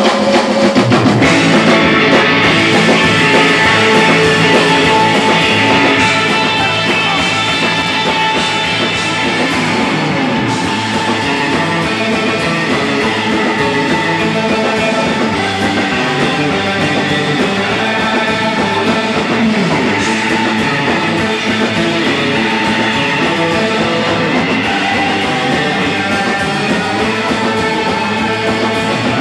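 Surf rock band playing live: electric guitars over a drum kit, loud and steady.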